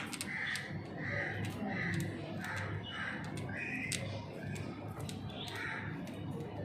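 Budgerigars calling: a run of short, raspy chirps, about two a second, with a few sharp clicks among them.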